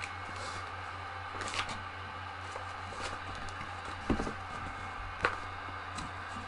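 Faint rustling and a few light knocks and clicks as a box of paper is handled, over a steady low hum.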